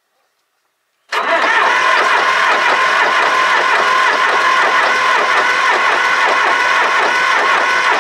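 Supercharged Cummins diesel engine being cranked on its starter, cutting in suddenly about a second in and turning over steadily with regular beats, to draw fuel through and bleed a newly fitted injection pump.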